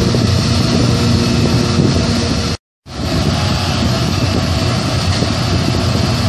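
Electric random-orbital polisher running on car paint, a steady motor hum with the pad whirring over the panel. The sound cuts out for a moment about two and a half seconds in, then the same steady machine noise carries on.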